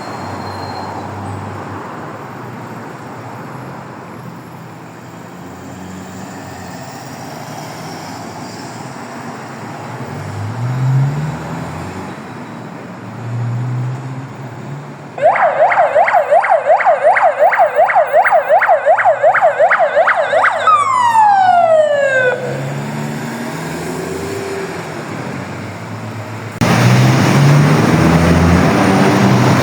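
Road traffic and vehicle engines, then about halfway through an ambulance siren switches on in yelp mode, a fast warble of about four cycles a second, for about five seconds before winding down in a falling glide. Near the end, louder traffic noise comes in and a siren starts a rising wail.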